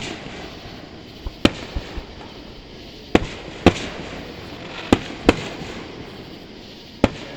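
Fireworks going off: about eight sharp bangs at irregular intervals, several coming in pairs a fraction of a second apart, each trailing off in a short echo.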